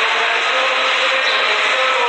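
Steady murmur of many worshippers praying and reciting in a large shrine hall, a dense hubbub with faint drifting voice tones and no single clear speaker, heard through a phone's live stream.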